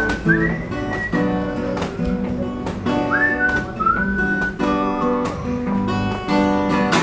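Acoustic guitar strummed in a steady rhythm while a person whistles the song's melody over it in two phrases: a high held note through the first second or so, then a line that steps downward from about three seconds in.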